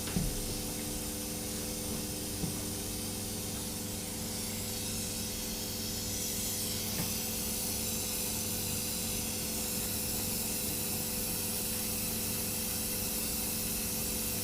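Oxyhydrogen torch flame hissing steadily as it heats parts for silver soldering, the torch fed by a water-electrolysis hydrogen/oxygen generator. The hiss grows a little louder about four seconds in, over a steady electrical hum.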